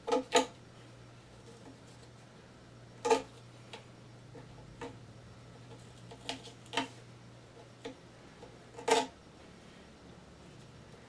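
Scattered sharp clicks and light knocks, about nine in all, as a wooden ukulele-kit piece is handled and worked with a cutter. The loudest come as a quick double at the start and about three and nine seconds in, over a faint steady low hum.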